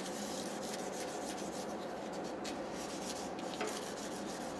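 Sandpaper rubbing along a lacquered Tsugaru-nuri chopstick, a steady scratchy rubbing. The lacquer is being lightly sanded back all over (togidashi) so the layered pattern shows through and the surface will take a gloss.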